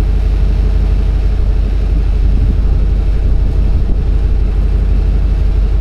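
A vehicle running with a steady low rumble of engine and road noise, heard from inside the vehicle.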